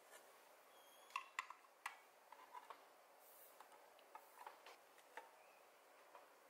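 Clicks and taps of a plastic lid being set onto a square glass food container and pressed down around its rim: a cluster of sharper clicks a little over a second in, then lighter scattered clicks.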